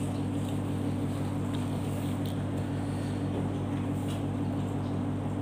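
A steady low mechanical hum with an unchanging pitch, with a few faint clicks over it.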